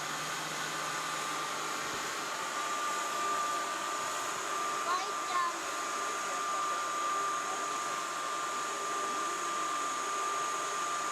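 A steady mechanical whine over a continuous hiss, even and unchanging, from machinery running.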